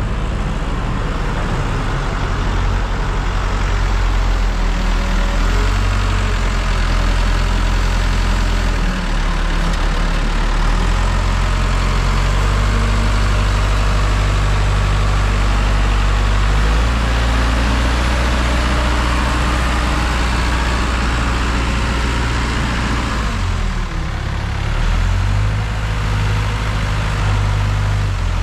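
Heavy diesel engine of a JLG 10/55 telescopic handler running under load as it lifts a log, its engine note shifting up and down several times.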